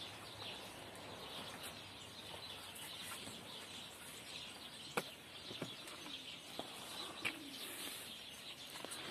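Faint background of birds calling, with a few soft knocks about halfway through.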